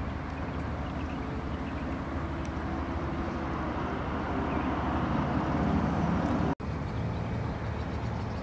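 Steady vehicle noise: a low engine and road rumble that grows slightly louder, cuts out for an instant about six and a half seconds in, then carries on.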